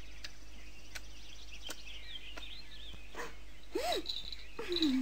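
Soft cartoon nature ambience: faint high chirps of birds or insects over a low steady hum, with a few faint clicks. Near the end come two short sliding tones, one rising then falling and one falling, like cartoon squeaks.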